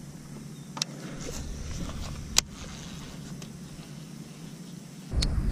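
Fishing-tackle handling noise close to the microphone: two sharp clicks, the second louder, as a soft plastic worm is rigged on a hook and a baitcasting reel is handled. A low rumble starts suddenly near the end.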